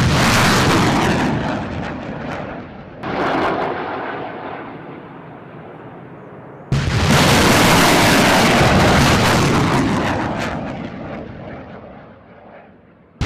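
M142 HIMARS launchers firing rockets: three sudden launch blasts, one at the start, one about 3 seconds in and one about 7 seconds in. Each is followed by the rushing noise of the rocket motor, which fades away over several seconds. The third launch is the loudest and lasts longest.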